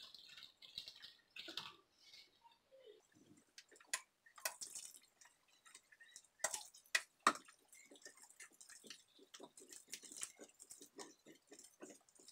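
Warm yeast water poured into a glass bowl of flour, then a bare hand mixing it into sticky dough: soft, repeated squishing and scraping strokes, with a few sharp knocks about halfway through.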